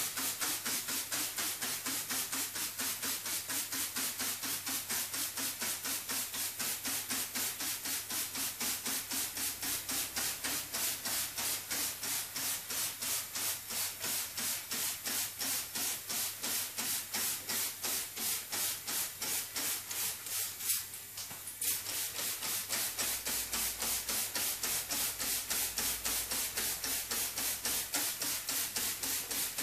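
Hand trigger spray bottle pumped rapidly and repeatedly, about three to four short hissing squirts a second, with a brief break about 21 seconds in.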